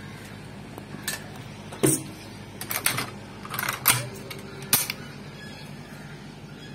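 Sharp metallic clicks and clacks from hands working the receiver of a Saiga-M3 EXP-01 .223 Kalashnikov-pattern rifle. The clicks come singly and in short clusters, and the loudest are about two and four seconds in.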